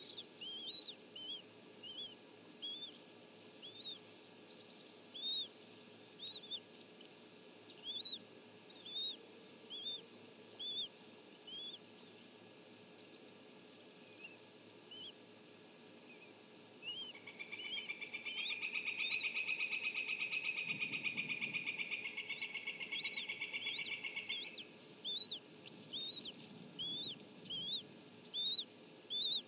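Bald eagle chicks peeping for food: short high chirps about every half-second to a second. About two-thirds of the way in, a louder bald eagle call of rapid chittering pulses runs for about seven seconds, then the peeping resumes.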